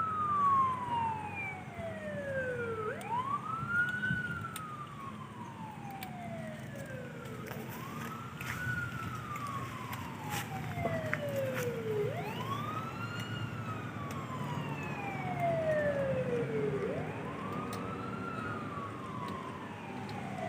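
A wailing siren: each cycle rises quickly, then falls slowly over about four seconds, repeating about every four and a half seconds. A fainter second sweeping tone overlaps it, over a steady background rumble.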